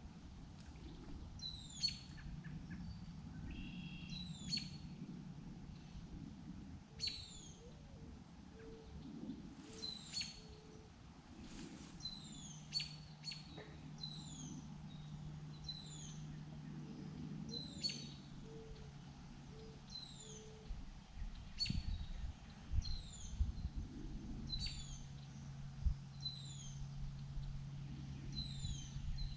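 Songbirds chirping: short, high, downward-slurred calls repeated every second or so, over a faint steady low hum.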